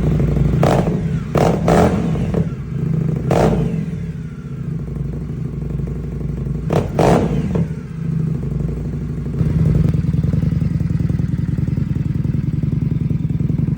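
2025 Indian 101 Scout's V-twin running through its exhaust at idle, blipped with several quick throttle revs in the first half, then settling into a steady idle.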